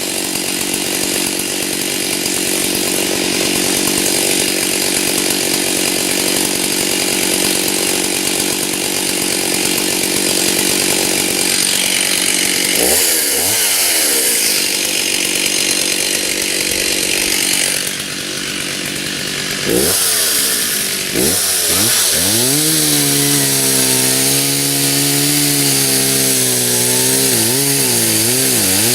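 Stihl chainsaw cutting into the trunk of a dead white oak, the engine running steadily under load. About 13 and 20 seconds in, the revs drop and rise again. In the last several seconds it runs with a clear engine note whose pitch wavers.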